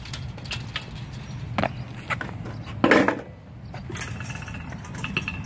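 A BMX bike clanking and rattling against a chain-link fence as it is lifted over, with the fence jangling and one loud knock about three seconds in.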